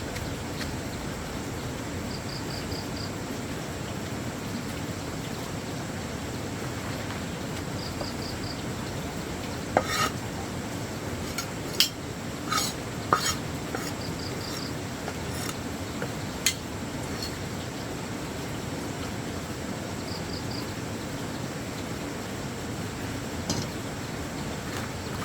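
Kitchen sounds: a steady sizzle-like hiss with a few sharp clinks of utensils or dishes, bunched in the middle. Short, high chirping pulses come now and then.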